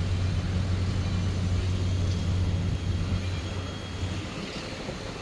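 A steady low hum that cuts off about four seconds in.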